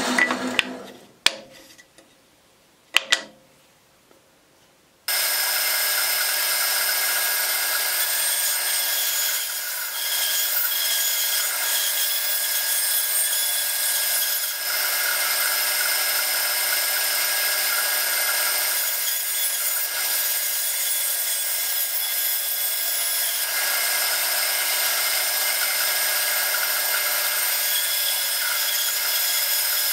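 Bandsaw running and cutting through a block of wood, a steady sound with a set of fixed tones over it. Near the start the sound dies away into near quiet broken by two sharp knocks, then about five seconds in the running saw comes back suddenly.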